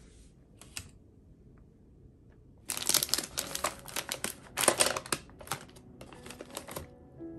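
Crinkling of a foil-lined plastic snack bag of Kkobuk Chips as it is unclipped, pulled open and a hand reaches inside. It starts about three seconds in, loud and busy for a few seconds, then softer.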